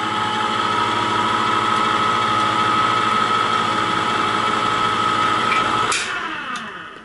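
Black & Decker EC500B electric can opener running hands-free, its motor whining steadily as it cuts around a can lid. About six seconds in it clicks off and the motor winds down, falling in pitch.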